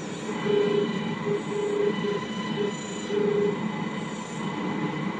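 Morse code on the long-wave band from an Integral radio receiver's loudspeaker: a single tone keyed on and off in dots and dashes over static hiss and faint steady whistles. It is either a receiver glitch or a radio navigation beacon, as the listener suspects.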